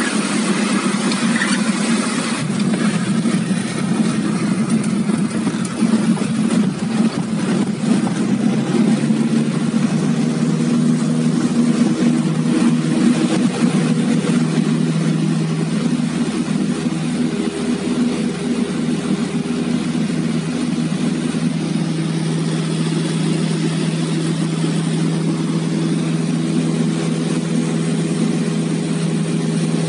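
Cabin noise of a Piper Warrior's four-cylinder Lycoming engine and propeller during a touch-and-go. In the first half it is mixed with the bumpy rumble of the wheels rolling over a grass runway. About halfway through the engine settles into a steady, even drone under take-off power as the plane lifts off and climbs.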